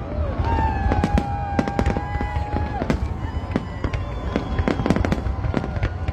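Large fireworks display: a dense run of bangs and crackles from bursting aerial shells over a constant low rumble. A held high tone runs for about two seconds, starting about half a second in.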